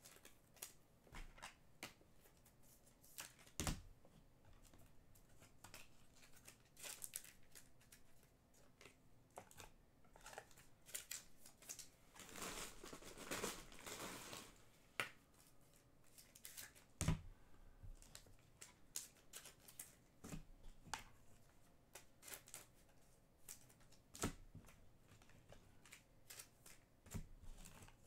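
Trading cards being handled and slid into plastic card sleeves: faint scattered clicks and taps with soft plastic rustling, and a longer stretch of rustling around the middle.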